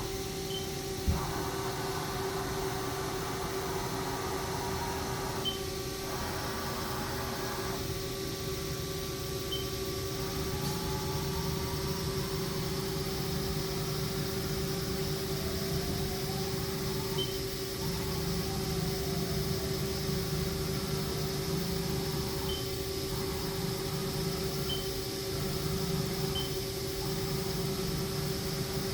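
2012 Haas ST40L CNC lathe running with a steady hum and a constant tone, its pitch gliding up and down several times. Faint short high beeps come every few seconds, and a single click sounds about a second in.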